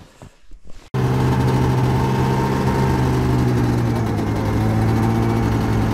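A Yamaha snowmobile engine idling steadily while it warms up. It comes in abruptly about a second in, after a faint quiet moment.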